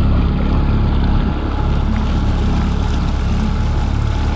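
Small tiller outboard motor running steadily under way, pushing the boat along, with water rushing in its wake.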